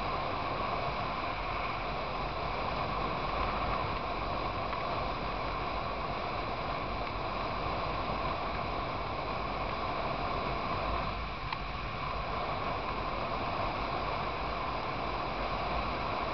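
Steady wind rush over the microphone mixed with road and engine noise from a motorcycle riding at a constant speed.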